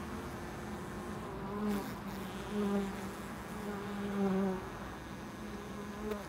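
Honey bees buzzing close up inside the hive. The hum wavers in pitch and swells louder several times as bees pass near, the loudest swell about four seconds in.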